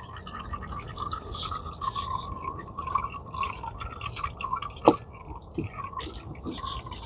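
Engine oil trickling and dripping from the loosened oil filter into a full drain pan, with small ticks and one sharp knock about five seconds in.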